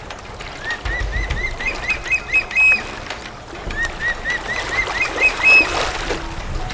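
A bird calling twice. Each call is a series of about ten short upward-sweeping notes that quicken and climb in pitch, ending on a higher held note.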